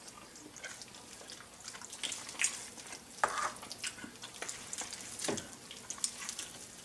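Plastic meat rakes tearing through a smoked pork shoulder on a wooden cutting board: quiet, irregular wet tearing and scraping strokes, the meat tender enough to pull apart easily.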